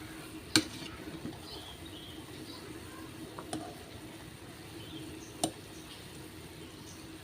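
Kitchen cooking sounds: a utensil clinks sharply against cookware twice, about five seconds apart, with a lighter knock in between, over a faint steady hum.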